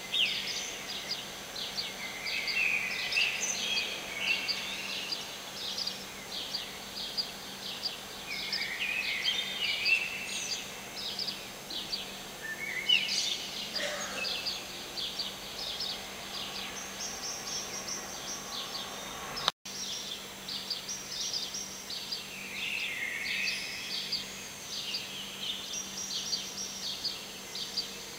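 Dawn chorus of many small birds: a dense, continuous mix of high chirps and short falling calls, over a faint steady low hum.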